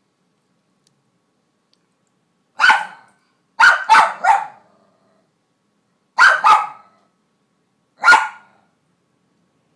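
Cairn terrier barking in short, sharp yaps at a kibble stuck out of reach under her crate. The first bark comes about two and a half seconds in, then a quick run of three, a pair, and a last single bark, seven in all.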